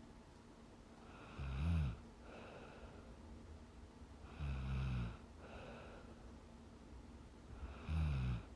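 A young woman snoring in her sleep: three snores about three seconds apart, each lasting about half a second, with softer breathing between them.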